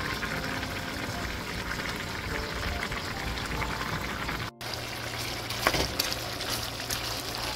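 Pot of corn kernels boiling hard in water, a steady bubbling. About four and a half seconds in it cuts off abruptly, and a pot of chicken simmering in sauce follows, with a low steady hum and two sharp knocks of a wooden spoon against the pot.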